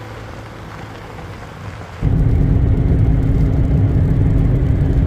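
Road and engine noise inside a pickup truck's cabin at highway speed on a wet road: a steady, loud low rumble with a steady hum. It cuts in suddenly about two seconds in, after a quieter, faint low hum.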